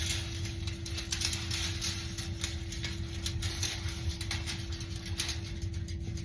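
Light metallic clicking and rattling as the old, broken coiled wire heating element of a dryer heater is pulled out of its housing, with a steady low hum underneath.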